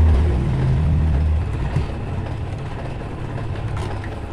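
A low, steady engine hum, loud for the first second and a half and then dropping to a quieter rumble, with a couple of faint clicks of pliers twisting copper wire.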